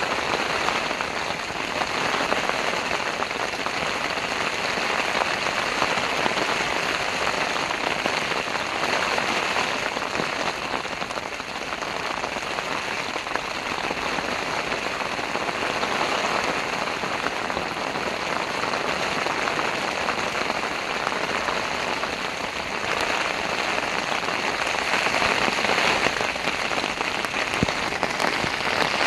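Heavy rain falling steadily on a tent, an even, unbroken downpour.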